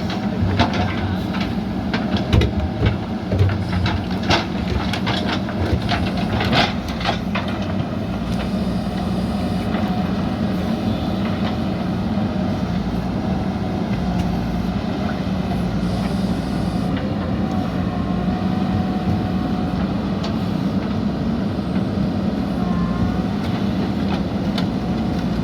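JCB backhoe loader's diesel engine running steadily under load, with a run of sharp metallic clanks and knocks over the first several seconds that then die away, leaving an even drone.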